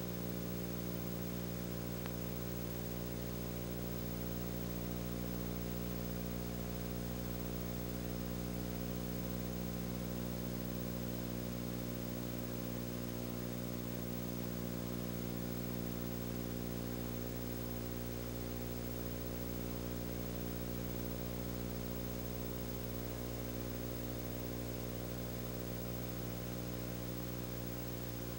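Steady, unchanging low electrical hum with a buzzing edge, the background noise of a silent home-movie film transfer with no sound from the scene itself.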